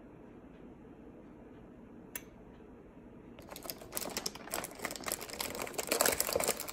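Plastic wrapper of an Oreo cookie package crinkling as a hand digs into it for cookies. It is a dense run of crackles that starts about halfway through and is loudest near the end. A single sharp tick comes about two seconds in.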